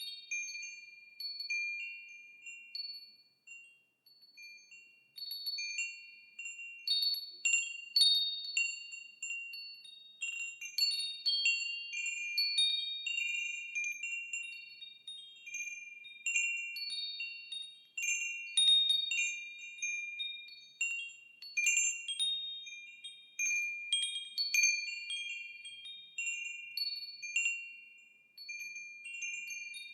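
Wind chimes ringing: clear high tones struck at random in loose clusters, each ringing on and fading, with a short lull about four seconds in.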